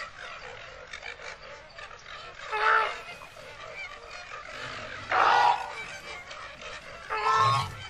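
Cartoon flamingos honking: three loud, short honking calls about two and a half seconds apart over a steady background hiss.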